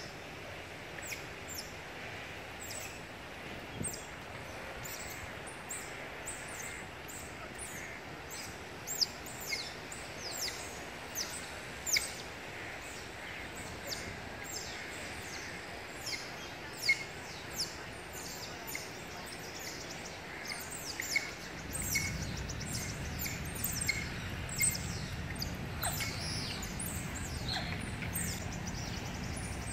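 A family group of smooth-coated otters chirping as they travel: many short, high, downward-sliding chirps, scattered and irregular, sometimes several a second. About two-thirds of the way through, a low steady rumble comes in underneath.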